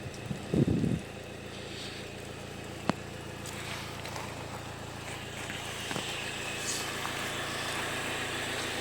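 A steady low mechanical hum, with a brief loud rumble about half a second in and a single sharp click about three seconds in.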